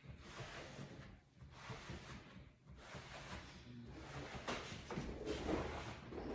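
A cloth rubbing over leather upholstery in repeated wiping strokes, about one a second, as a shine product is worked into the creases and stitching of a couch.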